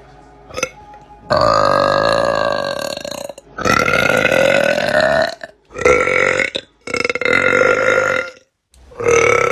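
A person burping: five thick, pitched burps in a row, the first two long and drawn out at about two seconds each, the last three shorter.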